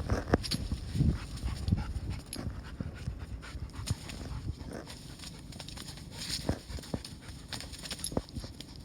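Dog panting, with scattered light clicks and knocks, busiest in the first second or so.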